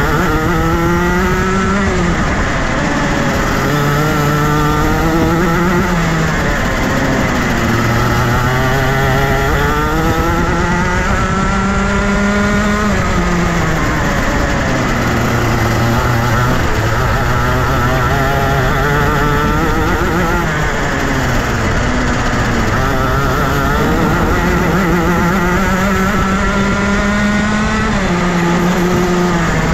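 Junior Rotax kart's 125cc single-cylinder two-stroke engine under hard acceleration and lifting off, its pitch climbing steadily and then dropping sharply, again and again, as the kart drives out of each corner and slows for the next.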